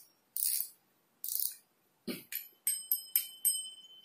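Daido Daimos 6000 spinning reel worked by hand: four short whirring bursts about a second apart as it is cranked, then, from about halfway, a quick run of sharp metallic clicks, each ringing briefly.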